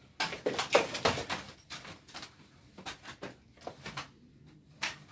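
Scuffling as an armed commando grapples a man against a wall: rustling clothing, shuffling feet and knocking gear, busiest in the first second and a half, then a few scattered clicks and taps.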